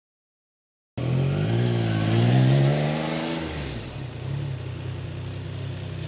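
A motorcycle engine cuts in suddenly about a second in, revs up with a rising pitch, then drops back to a steady idle.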